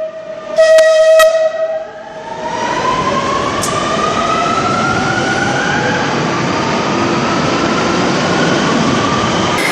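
Metro train pulling out of an underground station: a steady pitched warning tone sounds briefly near the start, then the train's electric traction motors whine, rising in pitch as it accelerates over a loud rolling rumble.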